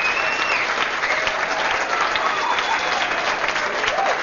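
Audience applauding steadily: a dense patter of many hands clapping, with a few voices calling out over it.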